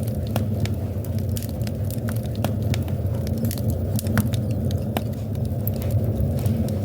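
Wood fire in a fireplace crackling: frequent sharp, irregular pops and snaps over a steady low rumble of the burning flames.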